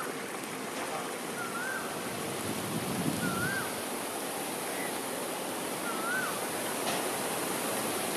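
Steady rushing outdoor noise, with a bird repeating a short, whistled rising-and-falling note four times at intervals of one and a half to three seconds.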